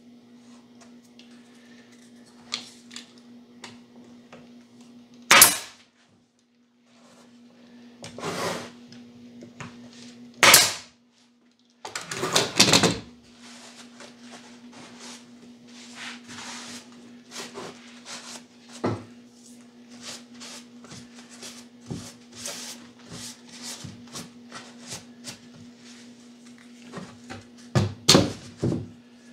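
Wooden knocks and clatter of pine beehive-box boards being handled, shifted and set down on a workbench. There are a few loud sharp cracks about 5 and 10 seconds in, a burst of knocks soon after, many small clicks, and another cluster of knocks near the end as the box is lifted.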